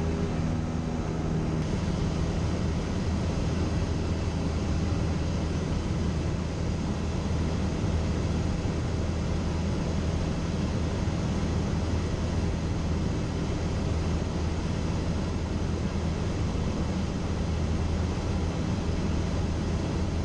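Cessna 172's single piston engine and propeller running steadily in flight, a constant drone heard from inside the cabin.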